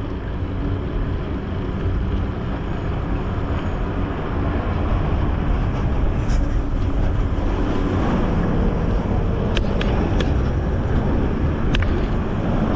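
Wind rushing over the microphone and tyre noise as a Dahon folding bicycle rolls along a bike lane, with road traffic alongside. Several sharp clicks or rattles sound in the last few seconds.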